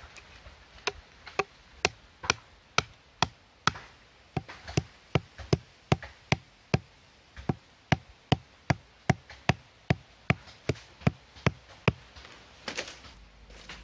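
Bamboo stake being driven into the ground, its top struck over and over with a heavy bush knife: a steady run of sharp knocks, about two to three a second, stopping near the end.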